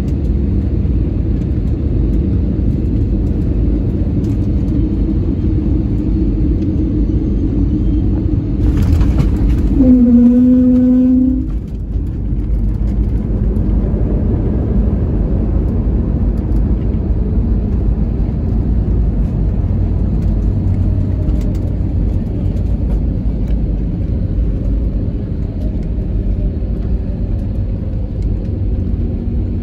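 Airliner's steady low rumble during landing. About nine seconds in comes a sharp knock, followed by a louder pitched hum that lasts about two seconds and cuts off abruptly.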